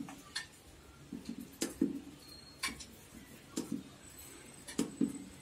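Push buttons on a Luminous NXT solar PCU's front panel clicking as the DOWN key is pressed again and again to scroll the settings menu: a string of short clicks, some in quick pairs.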